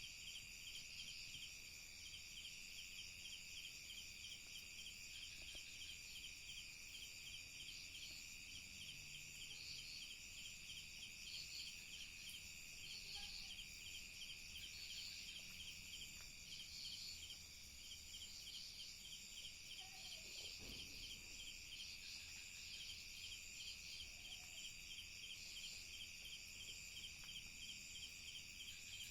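Faint night chorus of crickets and other insects: steady high-pitched trilling with a fast pulsing chirp train, and separate chirps recurring every second or so above it.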